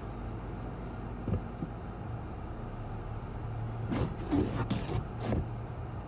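Steady low engine hum heard from inside a car, with a short flurry of sharp noises about four seconds in.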